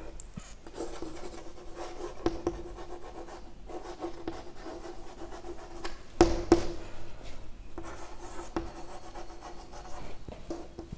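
Chalk writing on a chalkboard: short scratching strokes with brief pauses between words, and two sharp taps of the chalk on the board about six seconds in, the loudest sounds.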